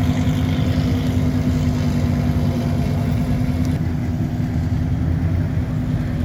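Car engine idling steadily, a low even hum with no revving.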